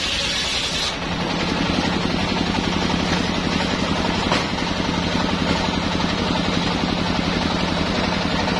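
Engine-driven homemade circular sawmill: the big blade finishes ripping through a hardwood log with a high hiss that stops abruptly about a second in. The engine then runs on steadily with the blade spinning free.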